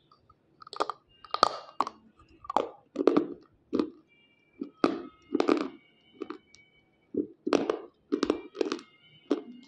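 Close-up biting and chewing of a white unshaped slate piece: a run of sharp, crisp crunches, about one or two a second, as the brittle chalky material breaks between the teeth.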